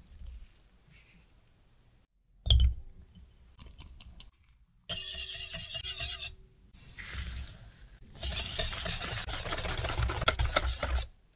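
A wire whisk beating egg yolks in a glass bowl, the wires scraping and clinking against the glass in two long bouts, the second the louder. A single sharp knock comes about two and a half seconds in.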